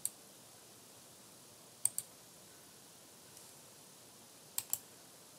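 Computer mouse button clicks: one click right at the start, then a quick double-click about two seconds in and another double-click late on.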